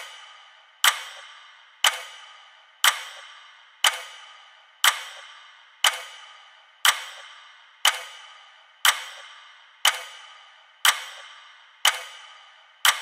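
A clock-tick sound effect: a sharp tick once a second, each ringing out and fading before the next.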